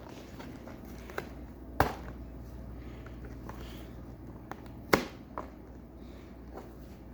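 LEGO set box being handled and opened for unboxing: a few light taps and two sharp knocks about three seconds apart, over a steady low hum.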